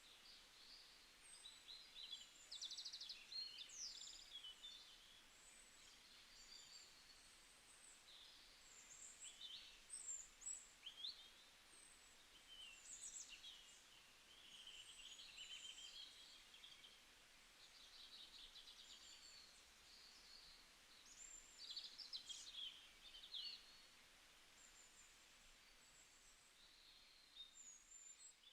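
Faint birdsong: many short, high chirps and trills from small birds, scattered throughout over a low steady hiss.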